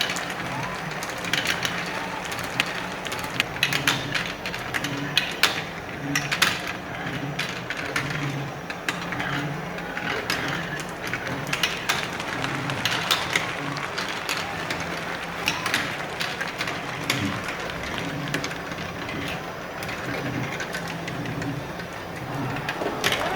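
Irregular clicks and clacks of marbles knocking into one another and the walls, some in quick clusters, over a steady low background.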